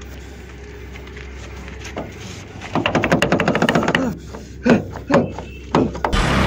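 A car door handle yanked over and over on a door that stays shut: about a second of fast rattling clicks, then three heavier clunks. Music comes in near the end.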